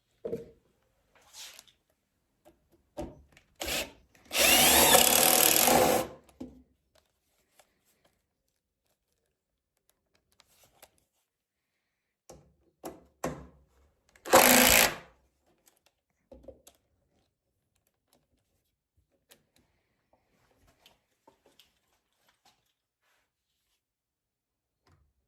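Power drill driving screws into wood: one run of about two seconds about four seconds in and a shorter one about fourteen seconds in, with a few light knocks around them.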